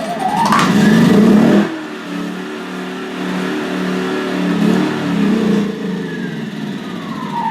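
Yamaha EF2000iS inverter generator's small single-cylinder four-stroke engine being pull-started with a rising whine from the recoil starter. It revs loudly for about a second and a half, then settles to a steady run. Near the end a falling whine sets in and the sound starts to fade as the engine begins to wind down.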